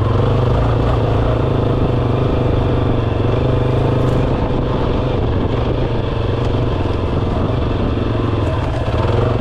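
Yamaha XT250's air-cooled single-cylinder four-stroke engine running at a steady, even pace while the bike is ridden along the trail.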